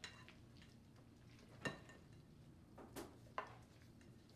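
Spoon knocking lightly against a glass mixing bowl four times while folding a thick, creamy fruit salad, with faint room hum between the knocks.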